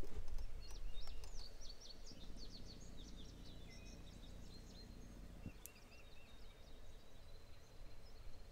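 Outdoor field ambience: a small bird sings a quick run of high chirps through the middle seconds, over a faint low rumble.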